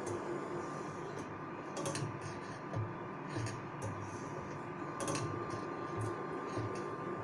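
Semi-automatic band saw setting machine running through its cycles: a steady motor hum with about six sharp mechanical clicks at uneven intervals as the pusher feeds the blade and the teeth are set two at a time.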